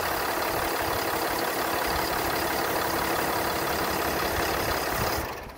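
Cummins 6.7-litre inline-six turbo diesel of a 2017 Ram 5500 idling steadily, heard close to the open engine bay. The sound falls away near the end.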